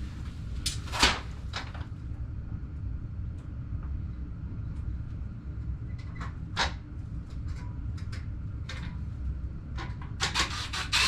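Shower-door wall rail being handled and set against the wall: scattered knocks and rubs, the loudest about a second in and a cluster near the end, over a steady low hum.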